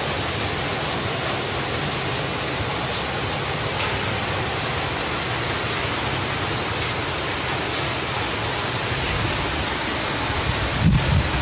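Heavy rain falling steadily, an even hiss of rain that does not let up. Near the end come a few low thumps.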